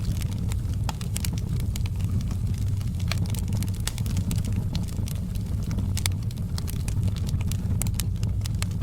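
Wood fire burning, with frequent irregular sharp crackles and pops of the wood over a steady low rumble of the flames.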